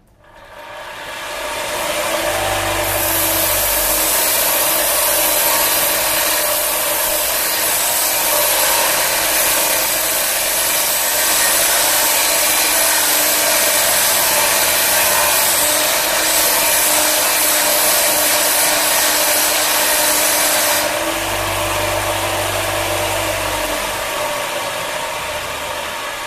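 Grinder fitted with a sanding disc spinning up and then grinding steel, stripping the grey mill scale down to bright metal, with a steady motor hum under a loud, harsh hiss. The hiss stops about 21 seconds in as the disc comes off the metal, and the motor keeps running.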